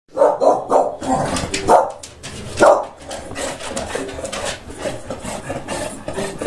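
English bulldog giving several short barks in the first three seconds, followed by scuffling and rustling as it moves about.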